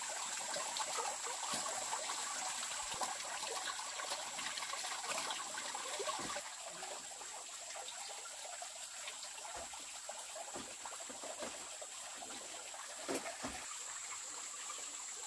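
Water running from a bamboo pipe spout and splashing onto bamboo slats as hands are washed under it. About six seconds in it cuts off suddenly to a quieter background with a few faint knocks, under a steady high-pitched tone.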